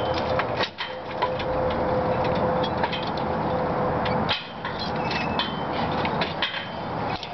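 Scattered metal clinks and knocks of hardware being handled and fastened on a steel cell-tower antenna mount, over a steady rushing background with a faint steady hum that stops near the end.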